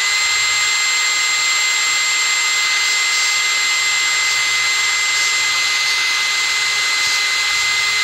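Electric drill running at a steady high-pitched whine while drilling out the cap over a carburetor pilot (idle mixture) screw on a Yamaha XVS1100 carburetor, dipping briefly in speed right at the end.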